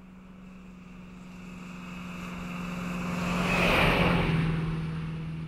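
A vehicle passes by: a steady engine hum under a rushing noise that swells to a loud peak about four seconds in and then fades away, the hum dropping slightly in pitch as it goes past.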